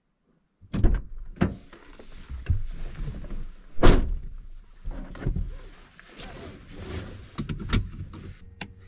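A person climbing into the driver's seat of a Suzuki Sidekick: a series of knocks and thuds from the body, seat and door, the loudest about four seconds in, with rustling between them. A faint steady hum starts near the end.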